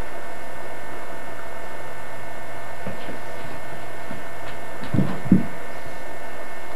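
Steady hum and hiss of an old home-video recording, with a couple of soft thumps about five seconds in.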